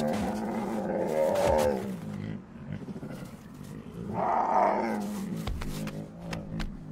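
Two brown bears growling as they wrestle in a play-fight, exercising muscles after hibernation. There is a deep, drawn-out growl for about the first two seconds and another growl about four seconds in.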